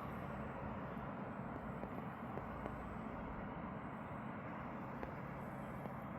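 Steady low outdoor background rumble with a faint low hum and no distinct events.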